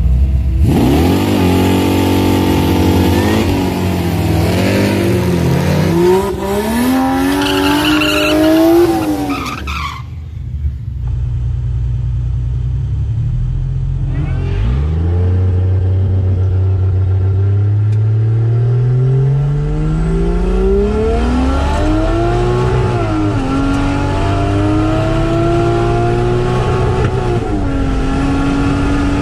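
2JZ-swapped Holden VH Commodore wagon's turbocharged straight-six revving hard with rising and falling pitch over loud tyre noise at the start line. Then, heard from inside the car, the engine pulls away, its pitch climbing and dropping at two gear changes.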